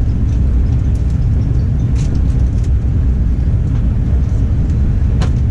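Steady low rumble of a fast passenger train running, heard from inside the carriage, with a few faint clicks over it.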